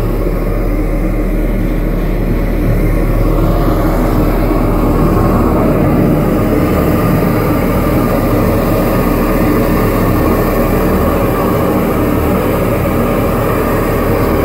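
An engine running steadily at a constant speed, a low even drone.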